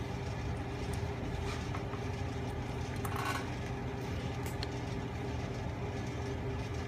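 Steady low machine hum of the room, with faint ticks of a boiled balut egg's shell being handled and a brief soft sip about three seconds in as the egg is raised to the mouth.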